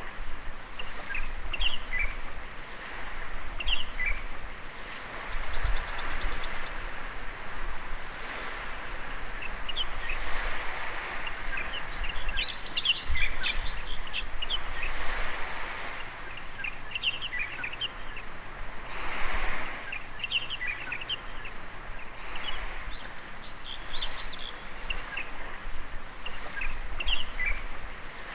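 Small waves washing onto a beach in slow swells, with birds chirping and calling over them throughout; a quick run of high chirps comes about five seconds in.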